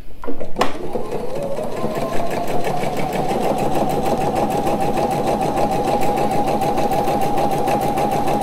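Pfaff Expression 710 computerised sewing machine starting an automatic buttonhole: a click about half a second in, then the motor speeds up over the next two seconds and settles into a steady, rapid run of needle strokes.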